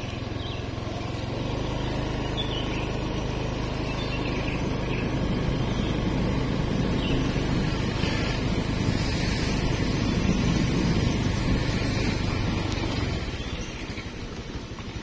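A motor engine running steadily with a low hum and a noisy rush over it, coming in about a second in and fading near the end.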